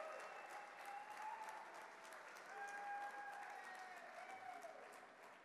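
Audience applauding, with a few held voices calling out over the clapping; the applause dies away towards the end.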